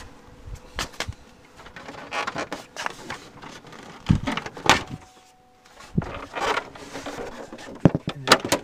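Scattered knocks, clicks and rustling from moving about at a pickup truck's open door and in its cab, with a few sharper knocks in the second half.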